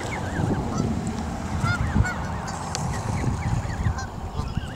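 A group of Canada geese calling with many short, repeated honks that overlap one another, over a low rumble.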